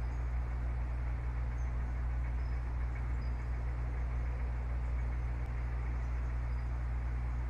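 Steady low rumble and hum of outdoor background noise, with a few faint, brief high chirps scattered through.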